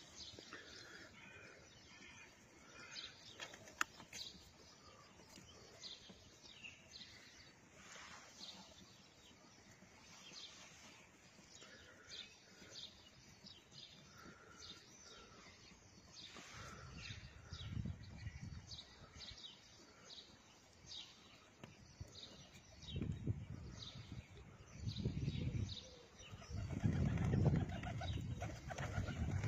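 Small birds chirping over and over. From about halfway through come several low bursts of pigeon wings flapping, the loudest near the end as a pigeon flies in.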